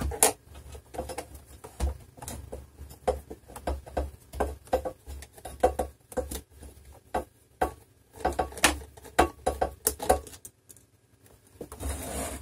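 Irregular clicks, taps and knocks of a plastic touch-screen computer housing being handled and shifted about on a desk, with a screwdriver tapping against it.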